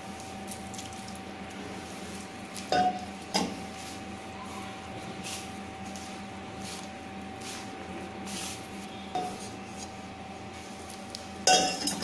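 A hand rubbing and squeezing gram flour with sliced onions and green chillies in a plastic bowl, a soft crumbly rustling and squishing, with a few short louder knocks against the bowl, about a quarter of the way in and again near the end.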